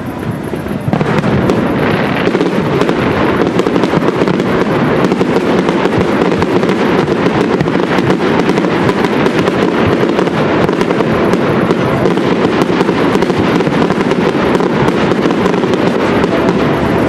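Aerial fireworks shells bursting into dense, continuous crackling, growing louder about a second in and keeping up steadily.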